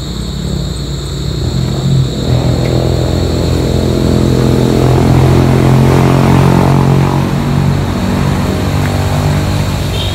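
An engine droning steadily, growing louder to a peak about six seconds in and then easing off a little, as if passing by.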